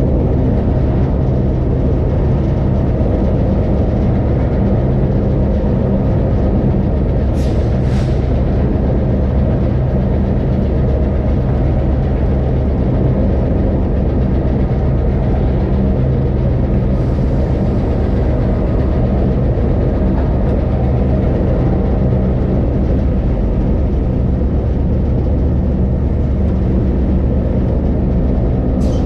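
A train rolling steadily across an iron truss bridge: its engine makes a continuous low drone, mixed with the rumble of the wheels on the track. There are two brief sharp clicks about seven seconds in, and another near the end.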